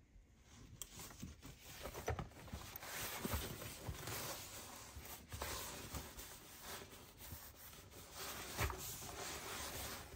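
Packaging being handled and opened by hand: continuous rustling and tearing with scattered small clicks and crinkles.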